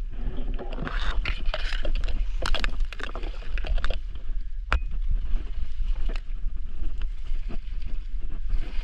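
Kayak being worked through dense reeds: stalks rustling and scraping against the hull in quick crackling strokes, with a sharp knock about five seconds in. A steady low wind rumble on the microphone lies under it.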